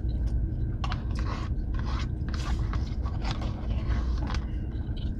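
Close-up eating sounds: chewing, with plastic forks scraping and clicking against plastic takeout trays as rice and fish are scooped up, over a steady low hum.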